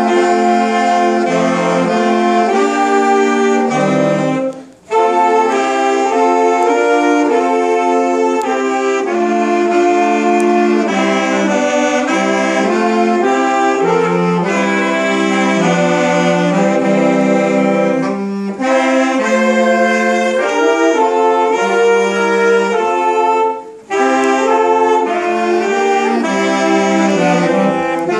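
A saxophone ensemble playing a carol medley in several-part harmony, with long held notes. The playing breaks off twice for a moment: about five seconds in and again near the 24-second mark.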